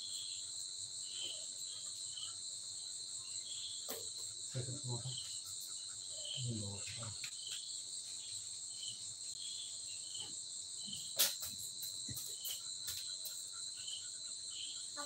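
Steady high-pitched insect chorus, with faint short low sounds around five and seven seconds in and a single sharp snap about eleven seconds in.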